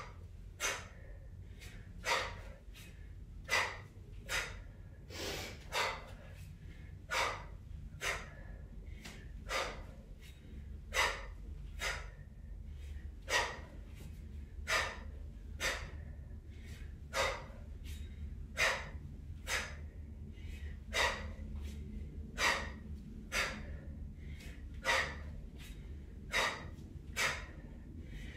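A woman's sharp, forceful breaths during kettlebell snatches and swings: short hissing breaths in and out at a steady beat, about one every three-quarters of a second, timed to each rep.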